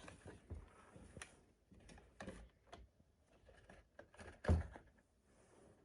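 Set plaster volcano being worked out of its mold: scattered small cracks, scrapes and knocks, with one louder knock about four and a half seconds in.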